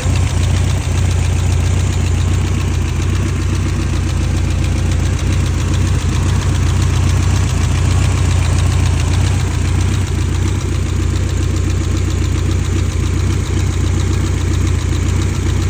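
BMW E30 M3's S14 four-cylinder engine idling steadily, with occasional irregular knocks or stumbles in its beat, which the owner suspects is a misfire.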